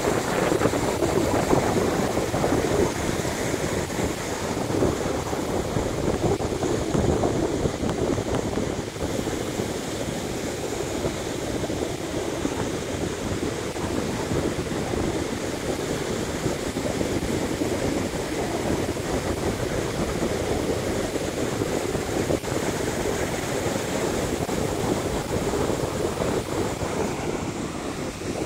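Ocean surf breaking and washing up a sandy beach in a steady rush, with wind noise on the microphone.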